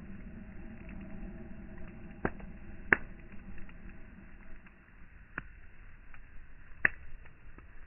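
Log campfire crackling with frequent small ticks and four sharp pops, the loudest about three seconds in and near the end.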